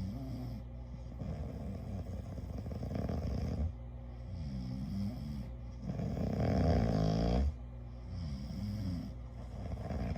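A sleeping person snoring, a rattling snore on each breath about every three to four seconds. The loudest snore comes about six seconds in.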